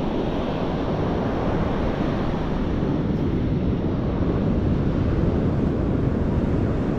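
Steady beach ambience of ocean surf, with wind rumbling on the microphone.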